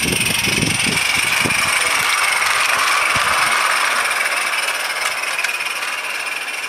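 A 16mm-scale garden railway train running past close by, its wheels clattering over the track for the first three seconds or so. A steady hiss runs throughout and eases off a little near the end.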